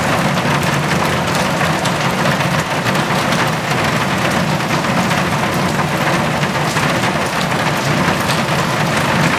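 Heavy rain drumming steadily on a metal roof: a dense, even patter of countless drop strikes with a low rumble underneath.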